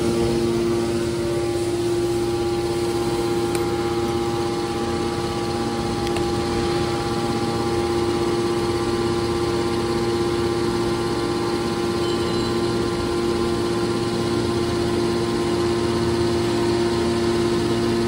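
Aluminum can baler's electric motor and hydraulic pump running steadily: a continuous machine hum with a few steady tones over it.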